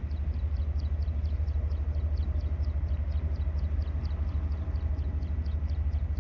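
Low, steady rumble of jet airliner engines, with a high chirp repeating about four to five times a second over it.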